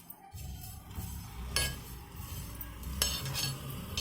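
A spatula stirring and scraping whole coriander seeds as they dry-roast in a pan, with a couple of sharper scrapes about one and a half and three seconds in, over a low steady hum.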